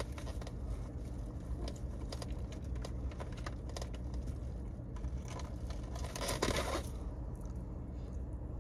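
Steady low hum inside a car, with scattered faint clicks and rustles and a brief louder rustle about six and a half seconds in.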